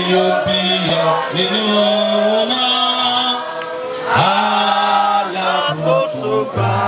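Voices singing a chant-like song, holding long notes and sliding up into several of them.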